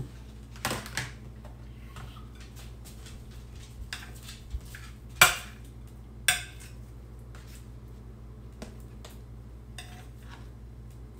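Metal spoon clinking against a ceramic baking dish while scooping cold pulled pork: a few short, separate clinks, the loudest about five seconds in.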